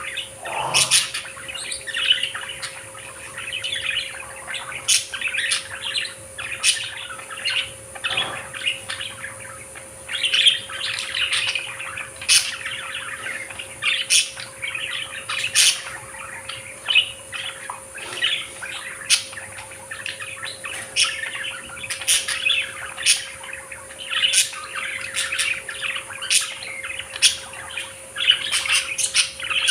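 Budgerigars chirping and chattering without a break, with frequent short, sharp high chirps over the warbling.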